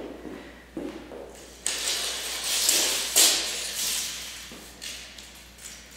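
Tape measure being pulled out: a few knocks and taps, then the blade sliding out for about three seconds with a sharp click partway through, then further small knocks.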